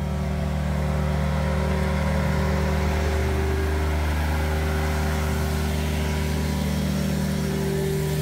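Ditch Witch HX30 vacuum excavator running at a steady speed, an even engine and blower drone with several constant tones and no change in pitch.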